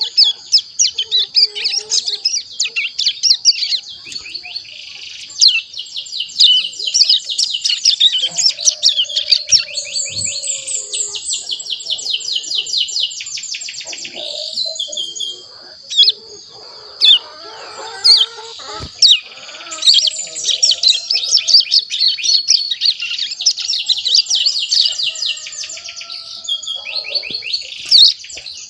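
Young hill prinia (ciblek gunung) about a month old, practising its subsong: long runs of rapid, scratchy twittering chirps and trills. They pause briefly about halfway through, over a steady high tone.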